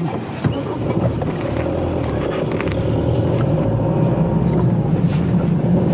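Car engine and road noise heard from inside the cabin as the car pulls away from a standstill and picks up speed, growing slowly louder.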